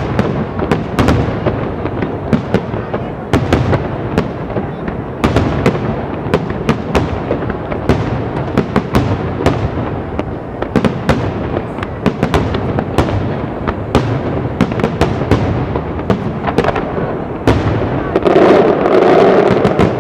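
Aerial fireworks display: shells bursting with sharp bangs one or two a second over a continuous rumble and crackle. It grows louder and denser near the end.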